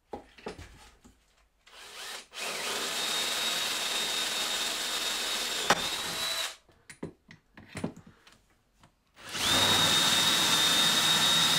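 Cordless drill boring holes down through plywood, running steadily with a high whine for about four seconds, then again from about nine seconds in. A few short knocks and clicks from handling come between the two runs.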